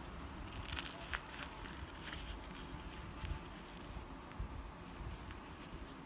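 Packaging being handled and torn open by hand: a run of crinkly rustles and rips, thickest in the first half, with a few more later on.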